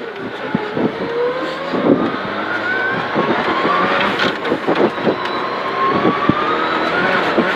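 A Prodrive Subaru Impreza N11 rally car's turbocharged 2.0-litre flat-four boxer engine is heard from inside the cabin, accelerating hard on a gravel straight. The pitch climbs steadily, drops at a gear change about three seconds in, then climbs again. Short knocks from the gravel road sound through the body.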